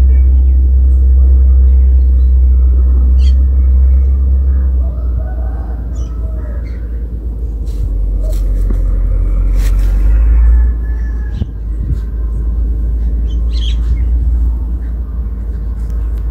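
A loud, steady low rumble that drops in level about five seconds in, with birds chirping and squawking now and then.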